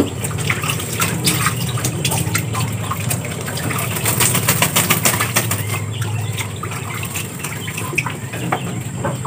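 Ducks bathing in a basin of water: irregular splashing and flicks of water as they dip and shake their heads, with bursts of wing flapping, busiest about halfway through. A steady low hum runs underneath.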